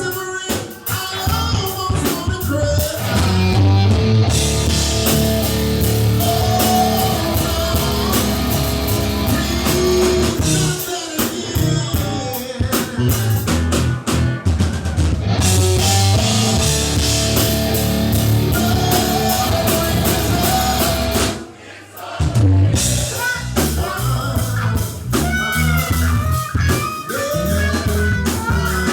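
Rock band playing live: electric guitar, bass and drum kit in a bluesy rock groove with lead vocals. The band drops out briefly about two-thirds of the way through, then comes back in.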